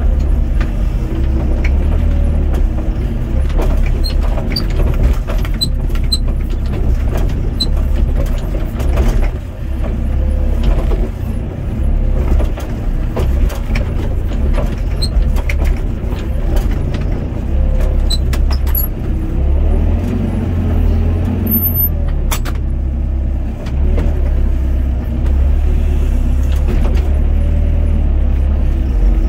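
Doosan DX55 mini excavator's diesel engine running under load, heard from the cab, its low drone swelling and easing as the hydraulics work the arm and bucket through soil. Scattered clicks and knocks run through it.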